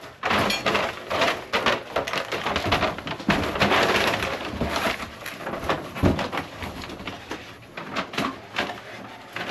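Crackling, crunching and knocking of clutter being handled and shifted, with a heavier thump about six seconds in.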